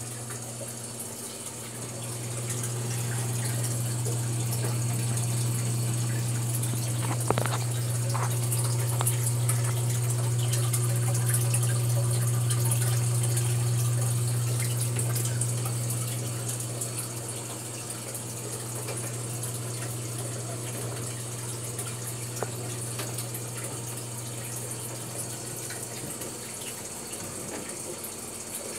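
A homemade terrarium canister filter running: its water pump makes a steady low hum over the hiss of flowing, trickling water. The hum swells for several seconds in the middle and then eases back, and there is a single click about seven seconds in.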